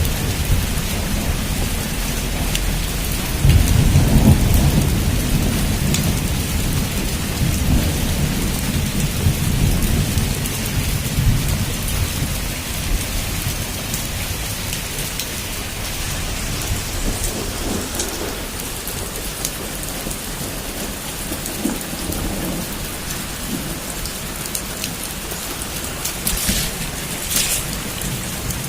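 Heavy rain drumming steadily on a rooftop, with single drops ticking through it. A low rumble of thunder swells about three seconds in and fades away over the next several seconds.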